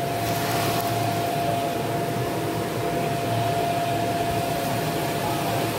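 Electric air blower of an inflatable water slide running steadily: a constant rush of air with an even, steady whine.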